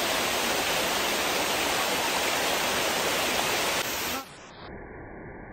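Water rushing and splashing over rock at a waterfall cascade, a steady hiss. About four seconds in it cuts to a quieter, muffled rush.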